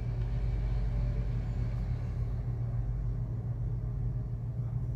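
Steady low hum with no other clear sound.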